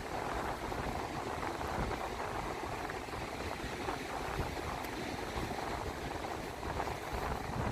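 Steady rushing noise of wind across the microphone and sea surf, with an unsteady low rumble of wind buffeting.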